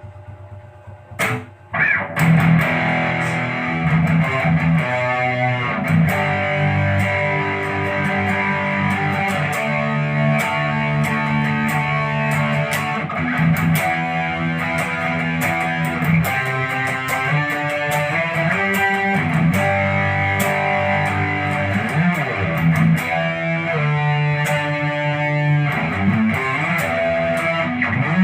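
White KGarage Les Paul-style electric guitar played through an amplifier: a faint hum, a sharp pick strike about a second in, then a continuous run of chords and single-note lines from about two seconds in.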